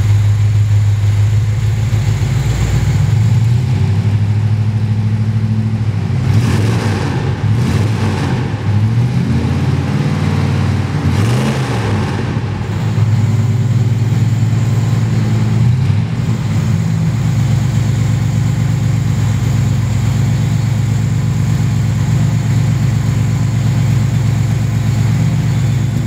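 1958 Ford Thunderbird's V8 engine idling, revved a few times around the middle so the pitch rises and falls, then settling back to a steady idle.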